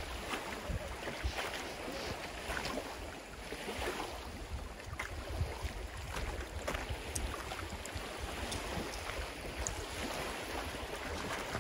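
Wind buffeting the microphone over lake water lapping against a wooden dock, with scattered light knocks of footsteps on the dock boards.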